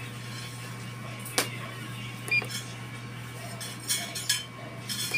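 Keypad presses on a General Master GMD-30kg digital price-computing scale: a few short clicks and a short electronic key beep about two seconds in, with another beep at the very end, as the scale is keyed into its calibration set mode. A steady low hum runs underneath.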